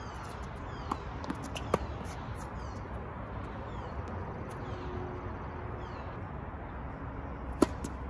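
Tennis ball struck by rackets on an outdoor court: a few sharp pops, a loud one about two seconds in and the loudest near the end. Songbirds chirp in short, falling notes throughout over a steady background.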